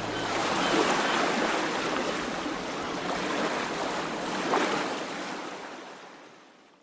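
Ocean surf, waves washing onto a shore, swelling twice and then fading out near the end.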